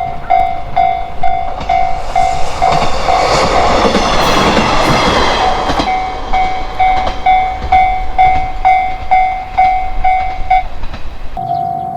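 Japanese railroad crossing warning bell clanging in a fast, even pulse, about two strikes a second, while a train passes. The train's running noise swells for a few seconds in the middle, with wheel clicks over the rail joints. Near the end the bell breaks off and the sound cuts to another crossing bell with a steadier ring.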